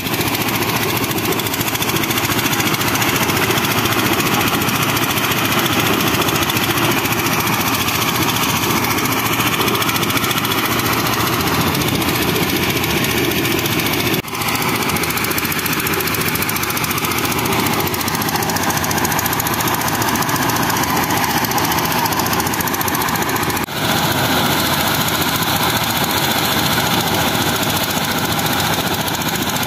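Engine-driven mobile corn sheller running steadily while shelling corn, a loud dense mechanical drone. Its tone sags and recovers slightly midway, and it dips briefly twice.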